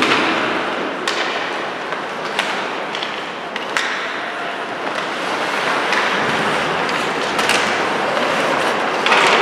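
Ice hockey play in a rink: skates scraping and carving on the ice over steady hall noise, with several sharp clacks of sticks and puck.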